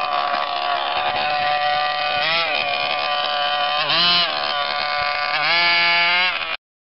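HPI Baja 5B SS RC buggy's 26cc two-stroke petrol engine running at part throttle, revved up briefly three times, the last rev held until the sound cuts off suddenly near the end.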